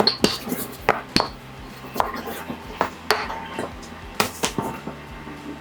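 Kitchen clatter: an irregular series of sharp knocks and clinks of utensils and dishes, about ten in all, some ringing briefly.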